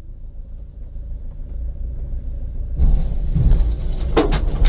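Low road and engine rumble heard from inside a car, growing louder. About three seconds in, a loud rushing noise sets in as a car speeds past close alongside on the dirt shoulder, followed near the end by a few sharp clacks.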